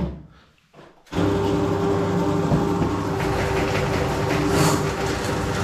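Motorised drain-cleaning spiral machine running steadily with a steady machine hum, starting abruptly about a second in after a moment of near quiet.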